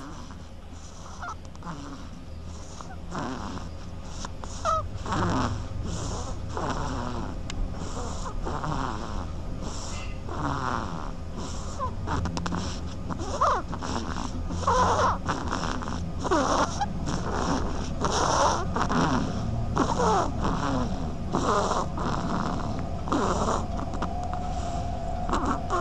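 A sleeping duck snoring: a steady run of short, raspy snoring breaths, a little more than one a second.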